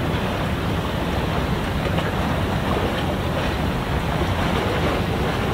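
Steady wind rumbling on the microphone over harbour water, with no distinct engine note or other event standing out.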